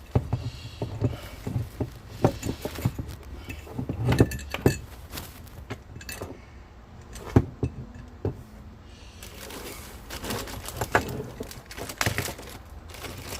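Small metal parts of a car ignition lock being handled and taken apart on a bench: irregular clicks, clinks and light rattles, the sharpest knock about seven seconds in.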